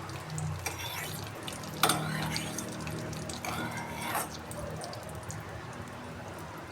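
Melted candle wax being poured, dripping and splashing, with a sharp clink about two seconds in; the sound eases off after about four seconds.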